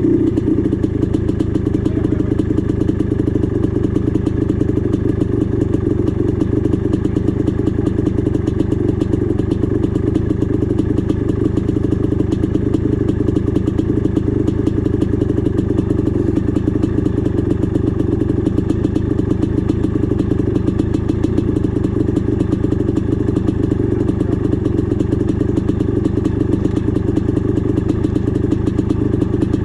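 Dirt bike engine running steadily at an even speed, a fast, dense firing rhythm with no revving up or down.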